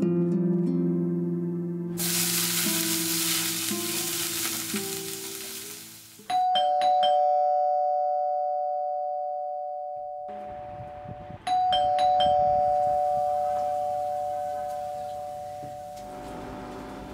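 Soft guitar music ends and gives way to the sizzle of food frying in a pan on a gas stove. A doorbell chime then rings twice, about five seconds apart; each ring holds a steady tone and slowly fades.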